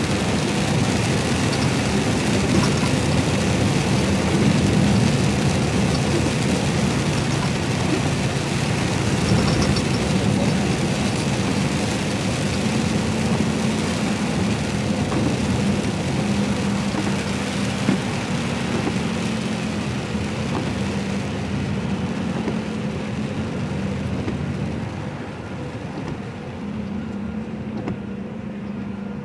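Inside an HGV lorry cab on a wet road: the truck's diesel engine hums steadily under a constant hiss of tyres on the wet surface. In the last several seconds the tyre hiss fades and the sound grows quieter as the lorry slows.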